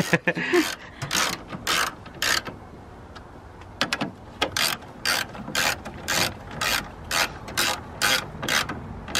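Socket ratchet wrench clicking as it is swung back and forth to turn a headlight mounting bolt, in short strokes about two a second, with a brief pause about three seconds in.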